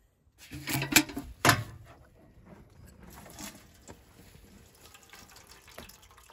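A thin stream of water runs from the tap of a plastic water canister into a metal bucket, a faint steady trickle with small drip ticks. Near the start there is a short burst of loud knocks, the loudest of them about a second and a second and a half in.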